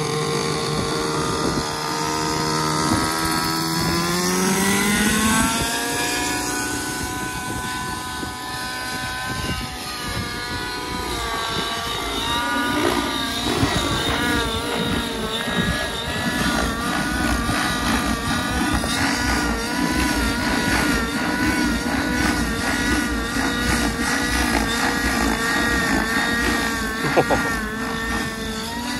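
Gaui NX7 radio-controlled helicopter's nitro engine and rotor: the pitch climbs steadily over the first several seconds as it spools up and lifts off, then warbles rapidly up and down as the engine is loaded and unloaded through 3D aerobatic manoeuvres. A brief sharp knock sounds near the end.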